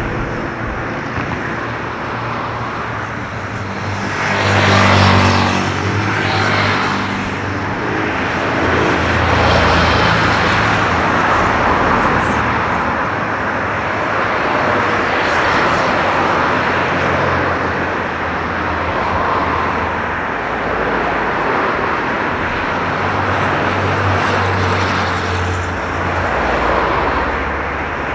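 Jet engines of an Airbus A330-900 (Rolls-Royce Trent 7000) running at taxi power as a steady noise with a low hum, swelling briefly about five seconds in and again later.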